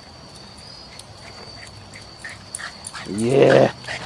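A Boston terrier gives one loud, drawn-out whining call about three seconds in, after a few seconds of quiet yard ambience.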